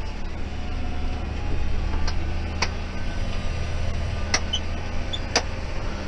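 John Deere 6190R tractor engine running steadily, heard from inside the cab, with a few sharp clicks over the hum.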